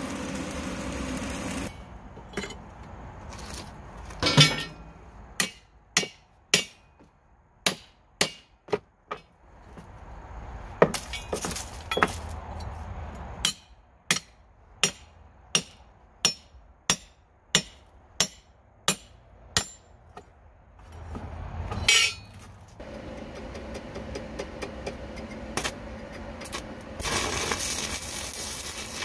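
Stick arc welding crackling at the start, then a long run of sharp hammer blows on steel angle iron, roughly one to two a second with gaps, then the stick-welding arc crackling again for the last several seconds, loudest near the end.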